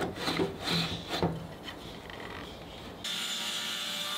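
A wooden frame board scraping and sliding over a cast-iron table-saw top and against an aluminium miter gauge fence as it is nudged into line with the blade. There are several short scrapes in the first second and a half, then it goes quiet, and a faint steady hum takes over about three seconds in.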